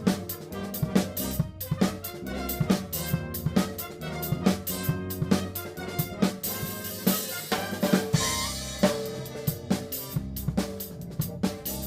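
Drum kit playing with a big band: steady snare and bass drum hits under sustained band chords, with a cymbal wash swelling about seven to nine seconds in.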